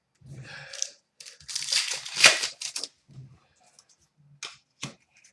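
A foil trading-card pack wrapper being torn open and crinkled, with a loud ripping noise about a second and a half in that lasts over a second. Shorter rustles and clicks of card and wrapper handling come before and after it.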